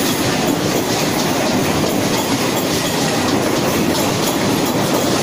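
Indian suburban electric local train's coaches running past: a steady rumble of steel wheels on the rails with repeated clacks over the track joints.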